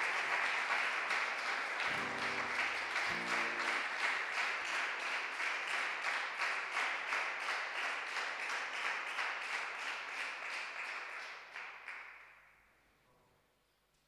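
A small audience applauding, with dense steady clapping that dies away about twelve seconds in. Two short pitched notes sound about two and three seconds in.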